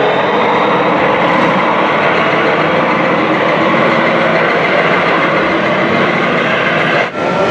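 Steady mechanical rumbling and rattling from RC model trucks and machinery running, breaking off abruptly about seven seconds in.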